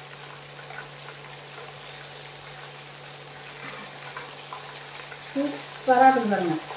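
Breaded chicken pieces frying in hot oil in a pan, a steady bubbling sizzle over a low steady hum. The sizzle is the meat's moisture still cooking out over low heat. A brief voice is heard near the end.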